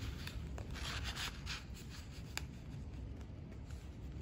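Soft rustling and sliding of paper as a small card is handled and tucked into a paper pocket of a handmade junk journal, with a light tap about two and a half seconds in.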